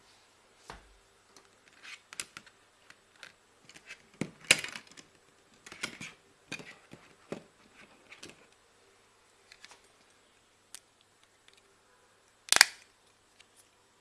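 Plastic eyeglass frames clicking and clattering on a table as they are picked up, handled and set down: a scatter of light clicks, with two sharper clacks, one about four and a half seconds in and the loudest near the end.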